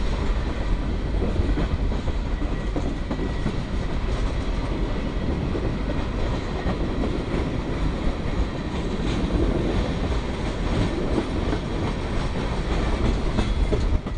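Union Pacific manifest freight train rolling past, a steady rumble with the clickety-clack of its cars' wheels over the rail joints.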